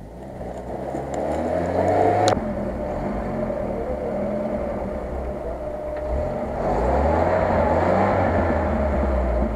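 UAZ off-roader's engine revving under load while it crawls through a muddy rut. The revs climb over the first two seconds, drop with a sharp click, hold steady, then rise again about two-thirds of the way through.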